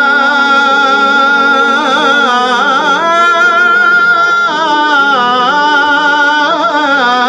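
Wordless sung opening of a nasheed: voices hold a steady sustained note while a lead line bends through ornamented runs a few times.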